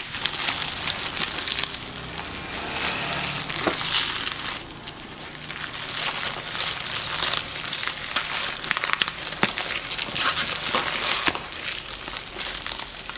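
Clear plastic stretch wrap crinkling and crackling as fingers pick at it and peel it off a cardboard parcel. The crackling runs in irregular bursts, easing off for a moment about five seconds in.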